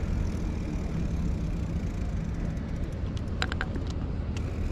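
Steady low rumble of road traffic and wind noise heard while cycling along a roadside path. About three seconds in there is a short run of light clicks and a brief high-pitched squeak.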